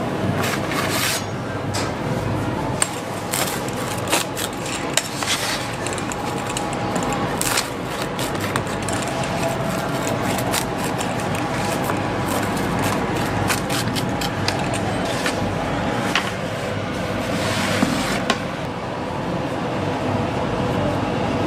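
Kitchen work noise: metal utensils scraping and clicking against boards and pans over a steady background hum, with a few longer scrapes, the longest near the end.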